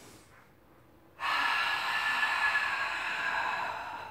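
A woman's long, forceful exhale through the mouth during a Pilates neck pull, starting suddenly about a second in and lasting nearly three seconds.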